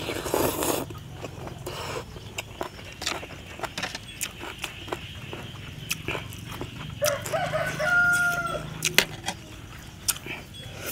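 A rooster crows once, a long held call starting about seven seconds in. Around it are eating sounds: a noodle slurp at the very start and scattered sharp clicks of a spoon and fork on a metal tray.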